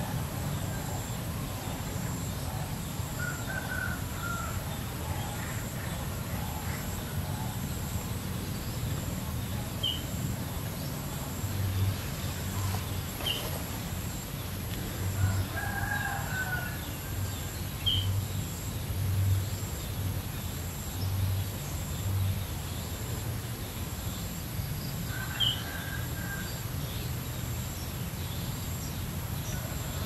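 Outdoor nature ambience: a distant rooster crows a few times and small birds give short, scattered chirps, over a steady hiss and low rumble.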